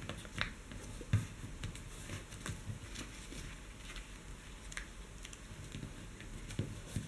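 A square sheet of origami paper being folded and creased by hand: scattered faint paper crinkles and taps.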